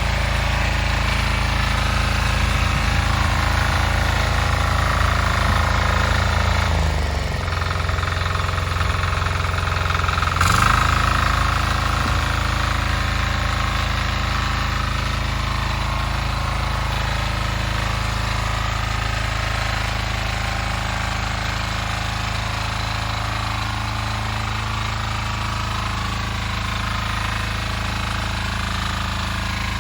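Single-cylinder diesel engine of a Weima walk-behind tractor running steadily with a knocking diesel clatter while it drives the tiller. About seven seconds in the engine note drops for a few seconds, then picks up again with a brief louder moment.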